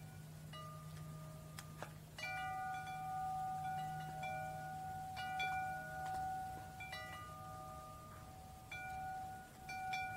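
Metal-tube wind chime swaying in the wind, its tubes struck at irregular intervals of a second or two and ringing with several clear overlapping tones that hold and slowly fade. A faint low steady hum lies underneath.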